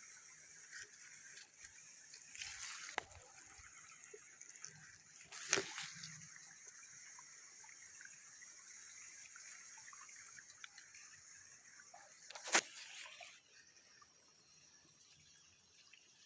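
Faint trickling water with two sharp splashes or knocks about seven seconds apart, over a steady high-pitched hiss.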